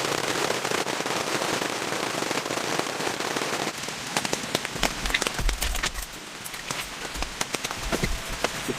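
Rain pattering on a tent or tarp: a dense crackling patter that thins about four seconds in to scattered separate drops and ticks, with a few low thuds.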